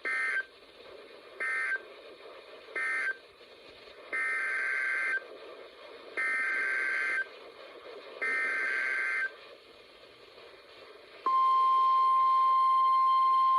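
Emergency Alert System SAME data bursts from a NOAA Weather Radio broadcast. First come three short bursts of warbling two-tone digital data, the end-of-message code closing the previous alert. Then come three longer bursts of header data announcing the next alert. About eleven seconds in, the loud, steady 1050 Hz weather radio alert tone begins.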